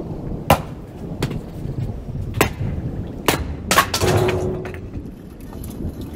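Axe splitting firewood on a chopping block: about five sharp cracks of the blade striking and splitting the logs, a second or less apart towards the middle, followed by a short clatter of split pieces of wood about four seconds in.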